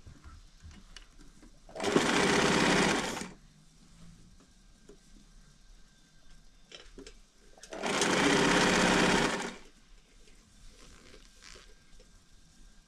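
Electric household sewing machine stitching fabric in two short runs of about a second and a half each, roughly six seconds apart.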